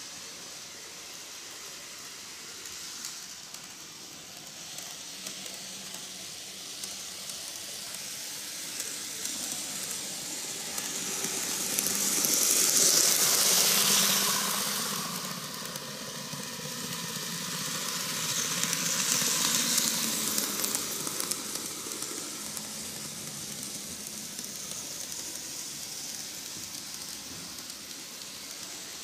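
N-gauge model trains (Keihan 600 series) running on TOMIX canted double track: a steady hiss of wheels on rail and small motors that swells to its loudest about thirteen seconds in, swells again around twenty seconds in, then fades.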